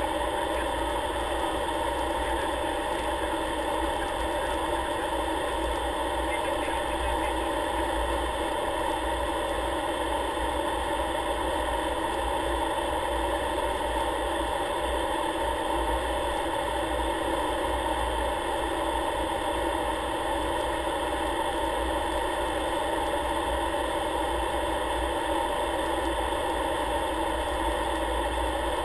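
Aircraft engine running at a steady cruise-descent setting, heard as an even, unchanging drone inside the cockpit.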